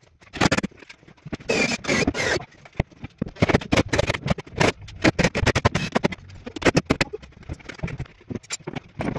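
Sped-up workshop noise: a rapid, irregular run of knocks and clatter as wooden panels and a cordless drill are handled while a plywood bench cabinet is assembled.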